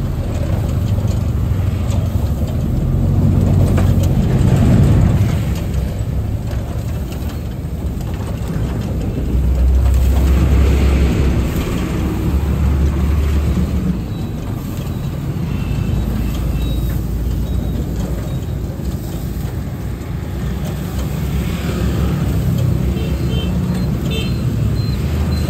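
Street traffic: engines of passing motorbikes and other vehicles rumbling without pause, swelling louder about four seconds in and again about ten seconds in.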